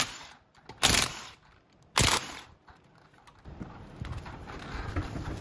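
Three sharp plastic knocks about a second apart, then quieter handling noise: a plastic hubcap-style wheel cover being handled.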